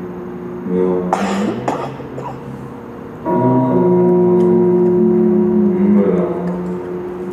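Sound-poetry performance at a microphone: several droning tones held together like a chord. A brief breathy rush comes about a second in, and a louder, steadier drone starts about three seconds in and falls away near six seconds.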